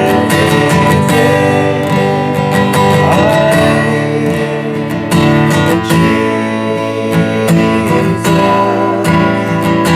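Worship-band music carried by a strummed acoustic guitar playing sustained chords, with a melody line wavering over it.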